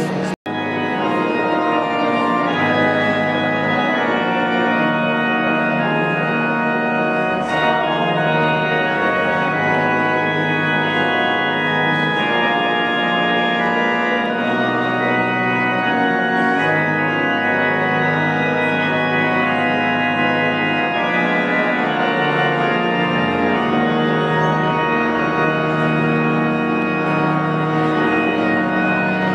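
Organ music: held chords over a slowly stepping bass line, each bass note sustained for a second or two.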